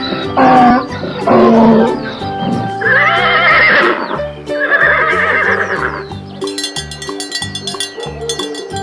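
Recorded farm-animal calls over a music track with a steady bass beat: two short loud calls in the first two seconds, then two long, wavering high calls about three and five seconds in. Only the music is left near the end.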